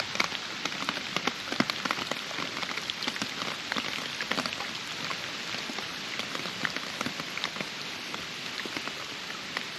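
Steady rain falling, an even hiss dotted with many small sharp drop ticks.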